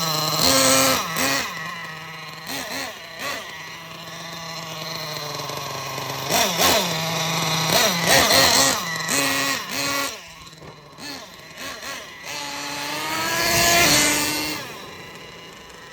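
Thunder Tiger Sledgehammer S50 RC monster truck's nitro glow engine, running on 25% nitro fuel, idling and blipped on the throttle several times, each blip rising in pitch and dropping back. About twelve seconds in it is revved longer and higher before the pitch falls and it settles again.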